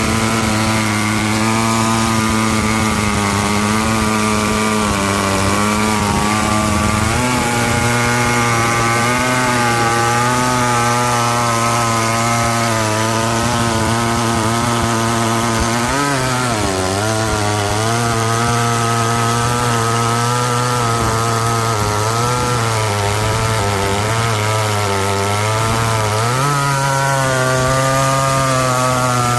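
Vintage two-stroke chainsaw running at full throttle through a long cut in wood. The engine note is steady, sags briefly under load about halfway through, and again near the end before rising to a higher pitch.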